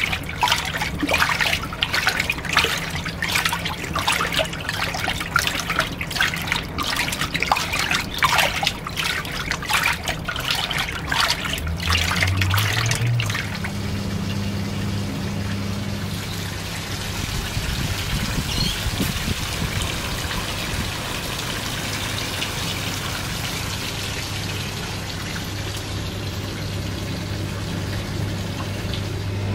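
Washing machine with water splashing and trickling into it; about twelve seconds in a motor starts, sliding briefly up in pitch, then settles into a steady low hum under an even rush of water.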